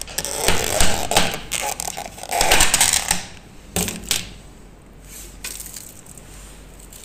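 Clicking, clattering and rustling of takeaway food containers being handled during a meal. The sound is busiest in the first four seconds, then only a few soft clicks remain.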